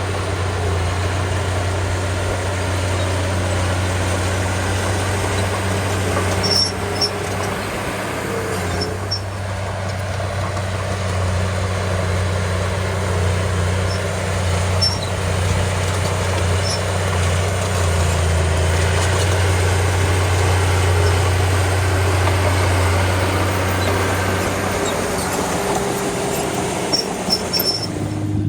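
Diesel engine of a small crawler bulldozer running steadily while working, with a few faint high clinks about seven seconds in and again near the end.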